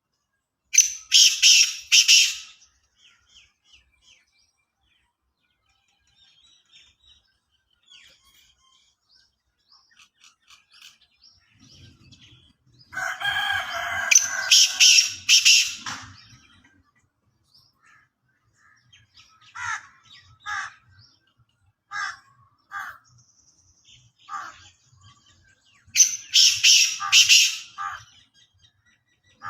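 Black francolin calling: three loud bouts of its harsh, rapid, grating call, each about two seconds long, near the start, in the middle and near the end. Fainter short chirps of other birds fill the gaps.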